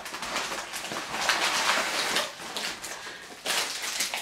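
Plastic packaging of baby wipes crinkling and rustling as the packs are handled, heaviest about a second in and again briefly near the end.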